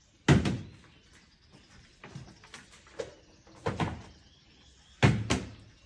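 Plastic water bottle flipped onto a table, landing with several sharp thuds; the loudest come about a third of a second in and near the end, with softer knocks in between.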